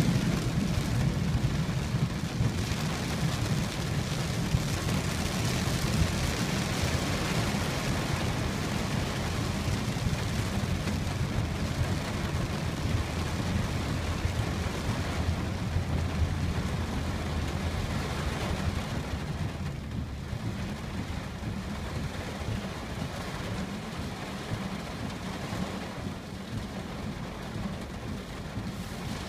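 Heavy rain falling on a car's roof and windshield, heard from inside the cabin: a steady hiss over a low rumble, easing somewhat in the last ten seconds.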